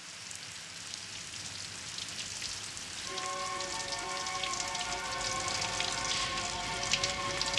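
Rain falling steadily, slowly growing louder, with many fine drop ticks. About three seconds in, background music of held, sustained chords comes in over the rain.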